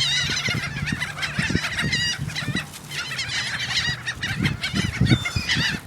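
A flock of birds calling all at once: many overlapping, wavering squawks that keep going without a break, mixed with low thumps.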